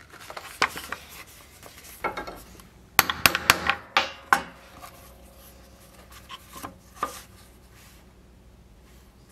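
A quick run of about six sharp taps, about three seconds in: a pricking iron, a multi-pronged leather stitching chisel, being struck to mark stitch holes in the leather. Softer rustling of the leather being handled, with a couple of single knocks on the wooden bench, comes before and after.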